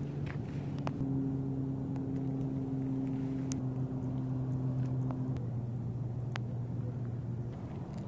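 A motor vehicle's engine runs with a steady low hum. It grows louder about a second in and fades away near the end, with a few sharp clicks over it.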